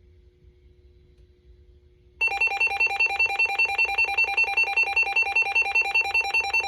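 Midland 74-200 weather radio's alert alarm: a loud, rapid, evenly repeating two-tone electronic warble that starts suddenly about two seconds in. It signals that the radio has received a weather warning, here a severe thunderstorm warning. Before it only a faint low hum is heard.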